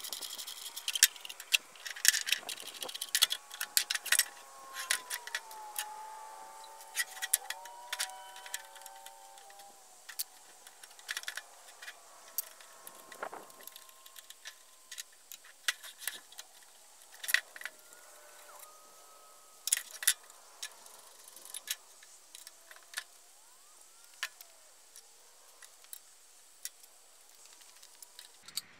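Metal hand tools and radial arm saw parts clinking and clicking against each other and the workbench during hand disassembly: scattered sharp metallic clicks at irregular intervals, a few of them loud.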